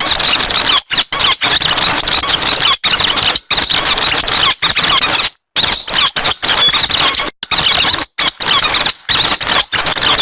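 Recorded calls of the 'hec xoan' bird played as a lure for bird trapping: a loud, rapid chatter of high squeaky notes, cut by several brief gaps.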